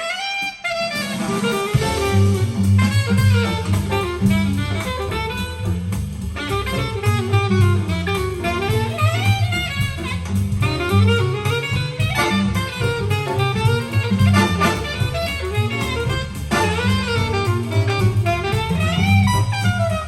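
Big band jazz recording playing through a pair of Tannoy Platinum B6 loudspeakers: saxophones and brass over drum kit. A bass line comes in about two seconds in.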